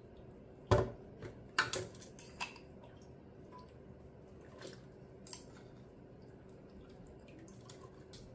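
Soaked dried chiles dropping from a bowl into an empty plastic blender jar, with water dripping off them: a few wet knocks, the loudest about a second in, then smaller ticks and drips.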